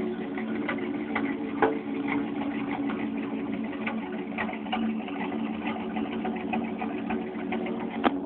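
Chevy 305 small-block V8 in a 1993 pickup idling roughly and unevenly, a fault the owner cannot trace and half-blames on the 305 itself. Irregular ticks run through the idle, with one sharp click near the end.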